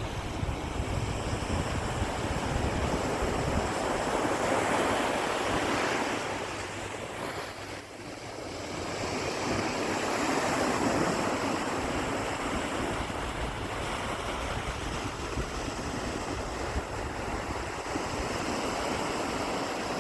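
Ocean surf: waves breaking and washing up the beach in a steady rush, swelling a few seconds in, easing briefly, then swelling again about ten seconds in.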